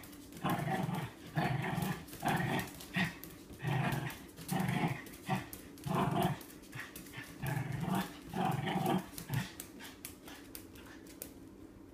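Small dog growling in a quick string of short bursts as it spins chasing its tail, about a dozen growls that stop about nine seconds in.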